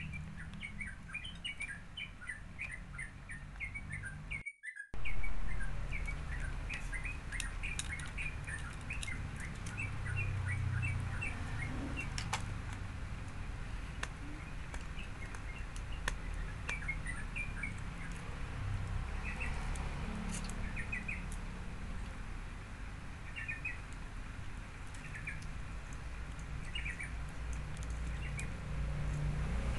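Small birds chirping in quick twittering runs in the background over a steady low hum, with light clicks from handling. The sound cuts out briefly about five seconds in and comes back with a short thump.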